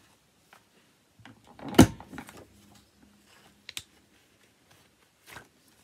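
Corner rounder punch snapping through card stock as the corners of a card are rounded: one sharp click about two seconds in, then two quieter clicks near four and five seconds.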